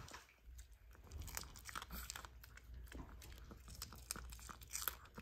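Small dog crunching and chewing crisp, low-temperature-dried sweet pumpkin treats: faint, irregular little crunches.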